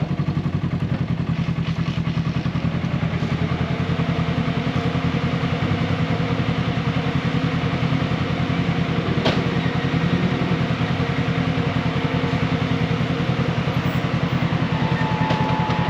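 Off-road vehicle engine running steadily at low revs, its firing pulses even and unchanging, with a single sharp knock about nine seconds in.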